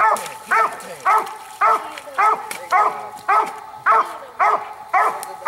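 Coonhound barking over a shot raccoon on the ground: a steady run of loud, evenly spaced barks, about two a second.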